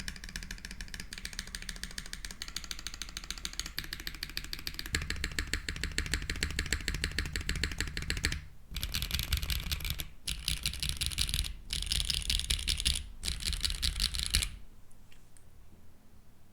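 Fast typing on a custom keyboard with lubed 48g Wingtree Camellia linear switches, giving a sharp, clacky keystroke sound. Rapid continuous keystrokes break into shorter bursts with brief pauses in the second half, and the typing stops near the end.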